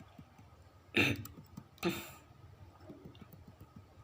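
A man coughing twice: one short cough about a second in and a second, breathier one just under a second later.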